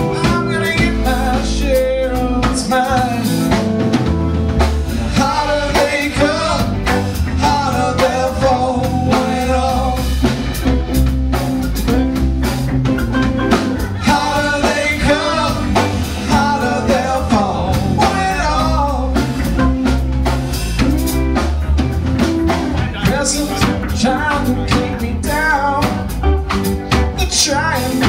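Live rock band of two electric guitars, electric bass and drum kit playing an instrumental stretch between sung lines: a bending melodic lead line over a steady drum beat and bass.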